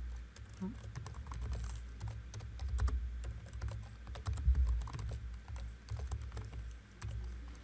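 Typing on a computer keyboard: quick, irregular keystroke clicks, with low thuds under the heavier strokes.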